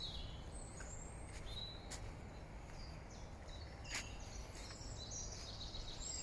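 Faint woodland ambience: small birds giving short, high chirps now and then over a low steady rumble, with one brief click about four seconds in.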